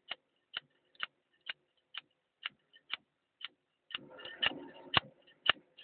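Socket ratchet clicking in steady strokes, a single sharp click about every half second.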